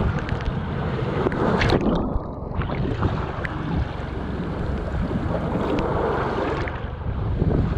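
Gusty wind buffeting the microphone over the wash of waves against the pier, with small splashes and ticks of water on the wet mesh grating.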